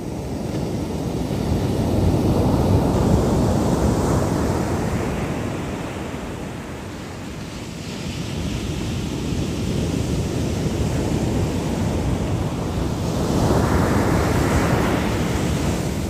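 Ocean surf breaking and washing up the shore, two large swells about ten seconds apart, with wind on the microphone.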